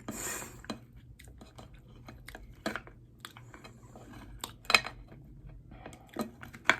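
Close-miked chewing and lip-smacking while eating hot chicken wings, a run of short wet clicks with a few sharper ones.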